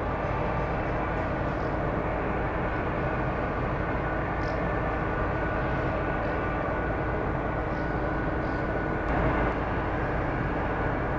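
Steady drone of the ro-ro rail ferry Jan Śniadecki's engines and machinery as it manoeuvres into its berth, swelling slightly a little after nine seconds.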